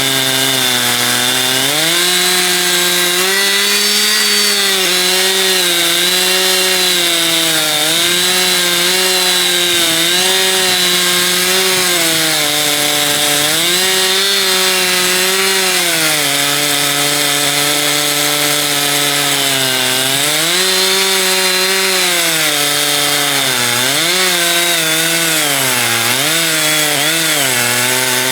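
Two-stroke chainsaw running at cutting speed in an Alaskan chainsaw mill, ripping lengthwise through a log. The engine pitch sags and recovers again and again as the chain loads up in the cut.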